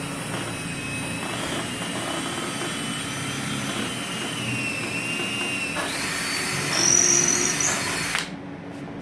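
Electric drill running, boring the shaft hole through a wooden frame member. The motor whine wavers steadily, then rises in pitch about two-thirds through, is loudest shortly after, and stops abruptly just before the end.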